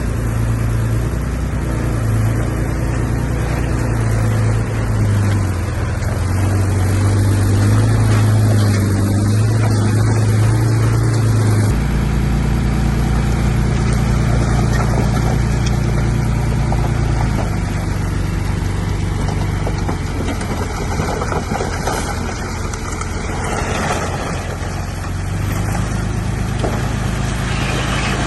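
Bulldozer's diesel engine running under working load, a steady heavy engine note that steps up in pitch about twelve seconds in, eases back a few seconds later, and rises again near the end as the machine works the throttle.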